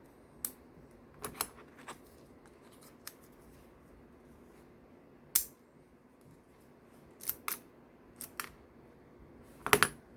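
Small, sharp metallic clicks and snaps from a 1:3 scale alloy Glock 17 miniature being worked by hand, at irregular intervals. The loudest snap comes about five seconds in, and a quick cluster of snaps comes near the end.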